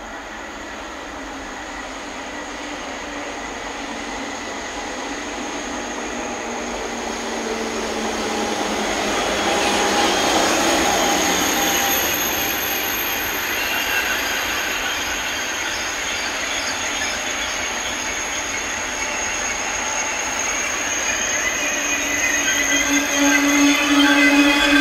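Double-deck TGV Duplex high-speed train running into the station, getting steadily louder as it approaches and its cars pass close by. Near the end, steady high-pitched squealing from the wheels and brakes as it slows almost to a stop.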